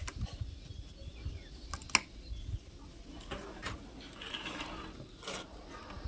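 A Mitutoyo vernier caliper clicking and scraping against a thin metal sheet cut from a can, as its jaw is set on the edge and dragged to scratch a 10 mm marking line. There are a few light clicks, one sharp one about two seconds in, and a soft scratching for about a second after the middle.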